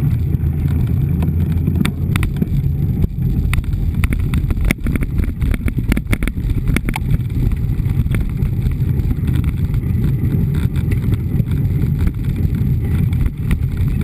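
Mountain bike rolling over a gravel dirt road, picked up by a camera mounted on the bike: a steady low rumble of wind on the microphone and tyre noise, with a run of sharp clicks and rattles from bumps in the middle.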